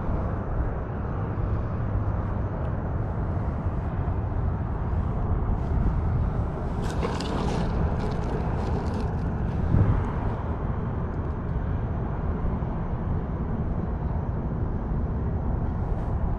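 Steady low rumble of wind buffeting the microphone, with rustling and clicking of plastic tackle packets being handled in a bucket about seven to nine seconds in.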